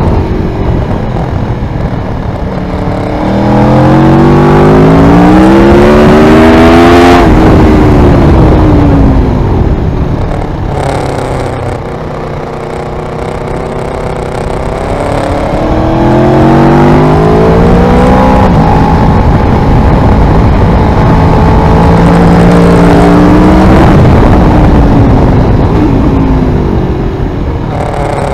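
Aprilia Tuono V4R's V4 engine through an Ozdany exhaust, heard onboard: it revs up hard with rising pitch, backs off with the pitch falling to a quieter low-revving stretch in the middle, then pulls up through the revs again before easing off near the end.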